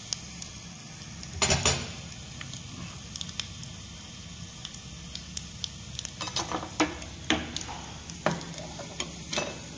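Garlic and ajwain (carom seeds) sizzling in hot oil in a small ladle over a gas flame, frying until they char: a steady hiss with scattered sharp crackles, and a brief louder noise about a second and a half in.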